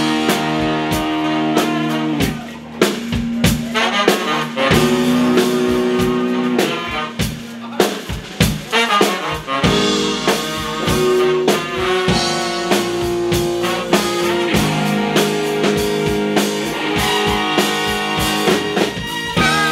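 Live band playing: a horn section of trumpet, trombone and saxophone plays held notes and a riff over drums and electric bass.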